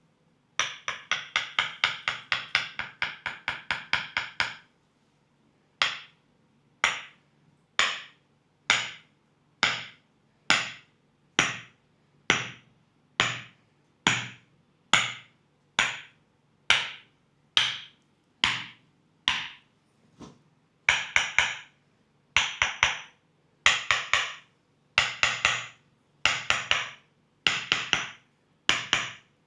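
Thai Tok Sen massage: a wooden mallet tapping a wooden wedge against the leg, giving sharp wooden knocks. A fast run of taps lasts about four seconds, then single taps come about once a second, and near the end the taps come in short quick runs about once a second.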